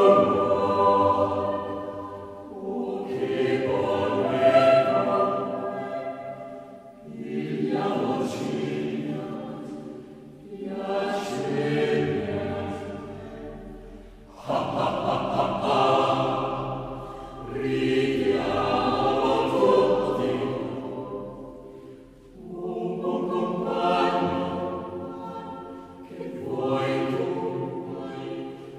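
Background choral music: voices singing slow, held phrases that swell and fade every three to four seconds.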